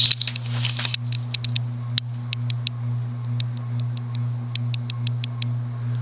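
TAT 36-inch spinner ceiling fan's stamped-steel motor running with a strong, steady hum, very hummy, which the owner suspects is a cyclic flux buzz. Scattered light ticks sound over the hum.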